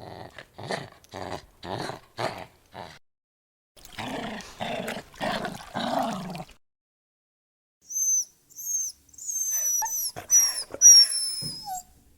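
Dog vocalising: a quick run of short, rough, evenly spaced sounds, then a few longer growl-like sounds, then a series of high, thin whines, several falling in pitch.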